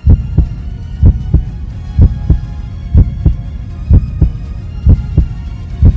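Heartbeat sound effect: pairs of low thumps, lub-dub, about once a second, over a faint held drone.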